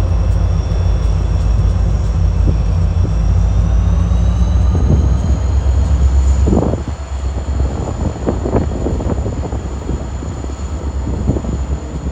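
An EMD SD40-2 diesel-electric locomotive's turbocharged 16-cylinder two-stroke engine running loud as it passes close by, then the engine sound drops off about halfway through and freight cars roll past with wheel and rail clanking.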